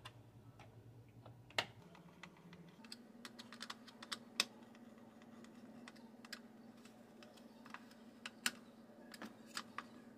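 Scattered light clicks and taps of a small screwdriver and plastic parts as a battery charger's fan assembly is put back together and its screws are snugged down. A faint low hum runs underneath.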